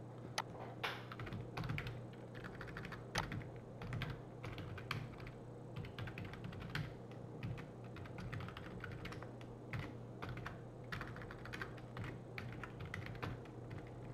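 Typing on a computer keyboard: quick, irregular key clicks, over a steady low hum.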